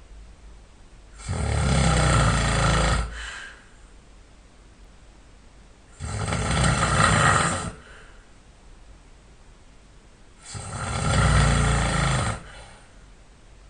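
A sleeping man snoring: three long snores, each about two seconds long and one about every four and a half seconds, with quiet breathing between.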